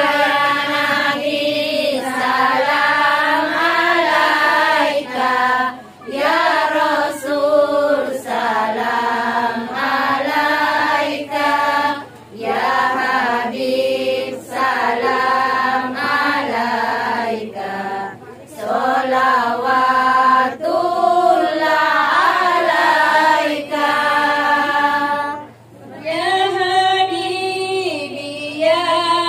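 Women's voices singing sholawat, Islamic devotional songs in praise of the Prophet, in long melodic phrases with brief breaks every few seconds.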